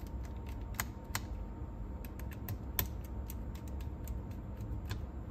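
Light, irregular clicks and taps of small tools and parts being handled on a Nakamichi 680ZX cassette deck's tape transport, over a faint low hum.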